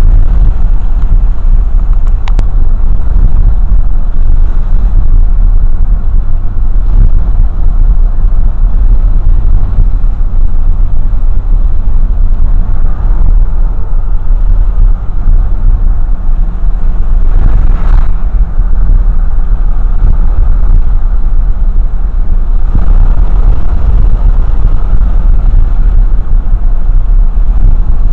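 Loud, steady rumble of a vehicle driving along a road, heard from inside the cabin, with the deep low rumble of road and engine noise dominant throughout.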